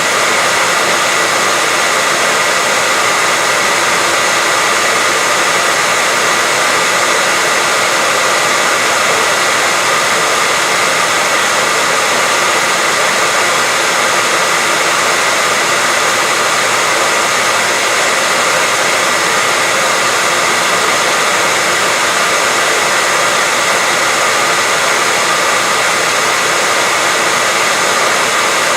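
Steady white-noise hiss, unchanging in level, with little bass and a faint steady tone near the middle of the range.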